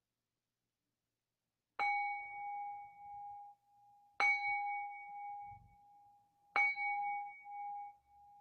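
A Buddhist bowl bell struck three times, about two and a half seconds apart, each strike ringing on and fading. It marks the bows in gassho at the close of the chanting.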